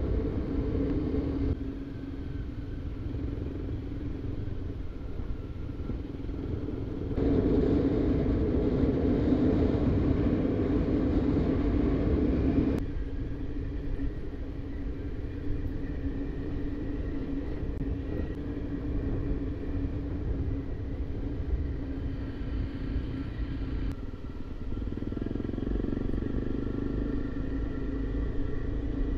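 A motor vehicle's engine running steadily with a low driving rumble. The sound shifts abruptly in level and tone a few times.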